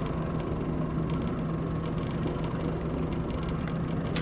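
Boat motor running steadily at low trolling revs, a constant low hum. A short sharp click near the end.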